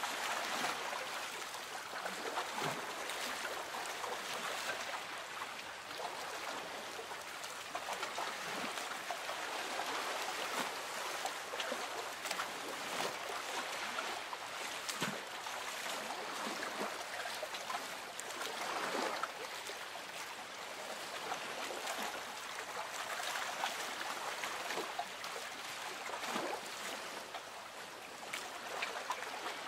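Lake water gently lapping against a small boat's hull: a steady soft wash with small irregular splashes every few seconds.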